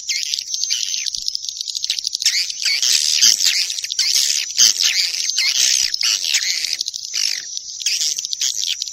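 Swiftlet calling sound used to lure swiftlets into a swiftlet house: a dense, continuous chatter of many overlapping high chirps and twitters.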